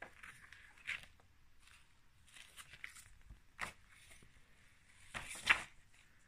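A glossy paper flyer being unfolded and handled: short rustles and slides of stiff paper, a handful of separate ones, the loudest a little after five seconds in.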